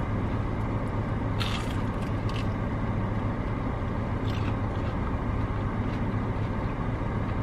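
Steady low hum of a car's idling engine and cabin noise, heard from inside the car. A few short crisp noises sound over it about a second and a half, two seconds and four seconds in.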